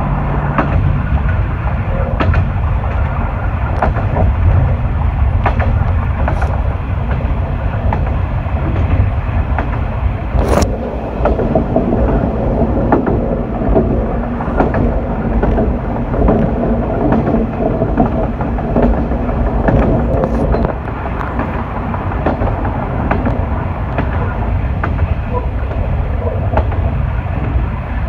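Diesel railcar running along single track, heard from inside at the front: a steady low engine and wheel rumble with scattered clicks of the wheels over rail joints, and one sharp click about ten seconds in.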